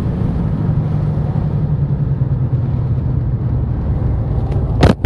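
Turbocharged Ford Probe GT (T04b 57-trim turbo on 15 psi) heard from inside the cabin, its engine running at a steady pitch under road noise. A sharp knock comes near the end.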